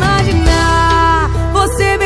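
Recorded pop song playing: a melody with a long held note from about half a second in, over a steady bass line.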